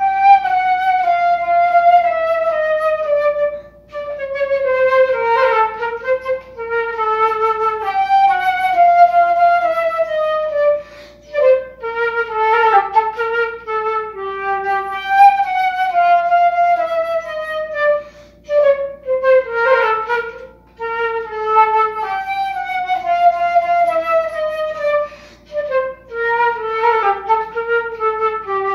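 A concert flute played solo, with no accompaniment: a string of phrases that each fall in pitch, separated by short breaths.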